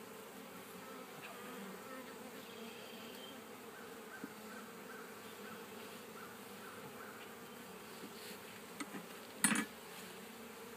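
Swarm of honeybees buzzing around an open hive in a steady, droning hum. A couple of small clicks, then one sharp knock near the end.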